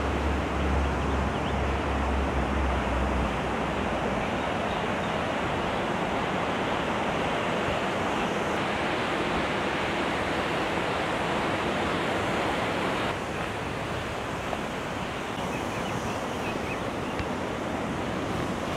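Steady rush of whitewater from the river and the flood-diversion tunnel outlet, with a low rumble in the first few seconds; it drops slightly in level about two-thirds of the way through.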